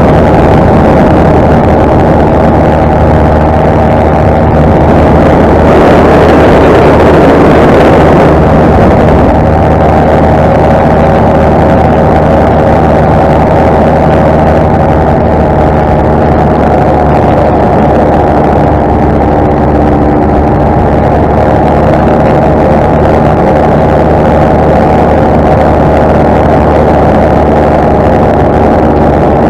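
Paramotor's two-stroke engine and propeller running steadily in flight, loud and close, with a brief swell of hiss about six seconds in.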